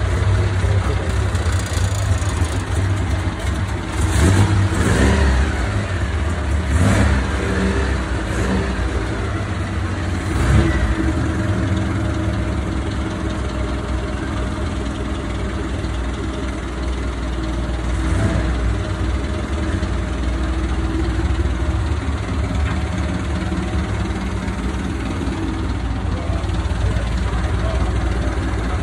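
Vintage car engine idling steadily, blipped up in revs a few times in the first ten seconds or so.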